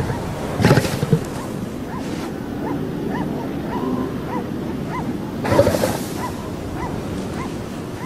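Elephant seals calling on a breeding beach: a string of short rise-and-fall calls, two or three a second, with two louder, rougher calls about a second in and again past the middle, over the wash of surf.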